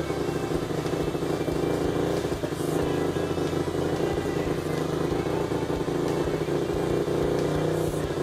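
Freshly rebuilt single-cylinder four-stroke engine of a Honda TRX450R quad, bored and stroked to 501cc, running steadily on its first run.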